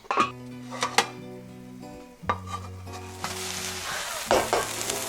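A frittata sizzling in a frying pan, with sharp clanks of the pan and its lid as it is handled and turned. The sizzle grows louder from about three seconds in. Background music plays over it.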